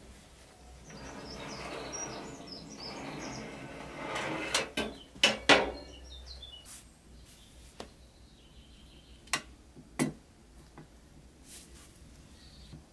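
Metal oven rack scraping and clattering as it is handled, with a couple of sharp metallic clanks about five seconds in; later a few light clicks of painted sheet-metal toy-truck parts being fitted together.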